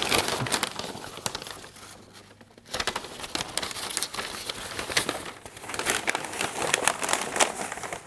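Packaging crinkling and rustling as a wrapped Funko Pop box is unwrapped by hand: a dense crackle of small clicks that eases off for about a second, then picks up again.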